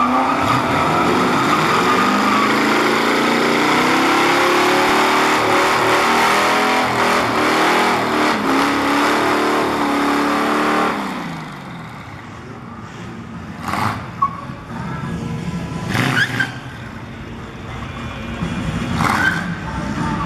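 Classic sedan's engine revving hard in a burnout, its rear tyres spinning and squealing, with the revs rising and falling for about eleven seconds. The revs then drop and the engine runs quieter, with three short louder bursts as the car rolls forward.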